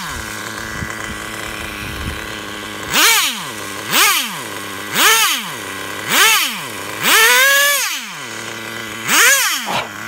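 Traxxas Jato 3.3's two-stroke nitro engine idling, then revved in six short blips about a second apart, each rising and falling in pitch, one held longer near the end.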